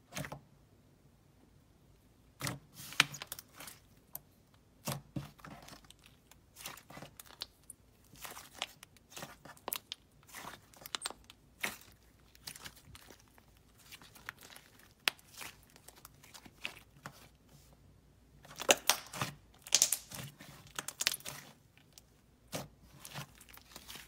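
Hands stretching, pulling and squishing fluffy slime with clay mixed in, making irregular sticky crackles, pops and tearing sounds. They start a couple of seconds in and are loudest in a dense cluster about three-quarters of the way through.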